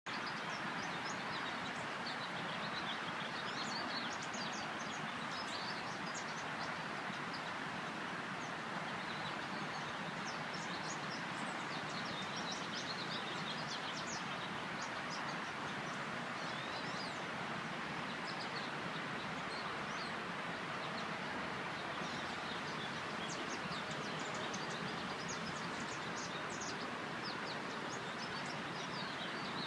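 Morning chorus of small birds: many short, high chirps and twitters overlapping throughout, over a steady background hum.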